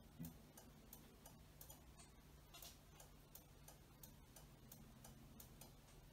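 Faint, even clicking about three times a second from a Honda Gold Wing GL1800's turn-signal flasher as the blinker cycles, over a low steady hum, with one brief low thump near the start.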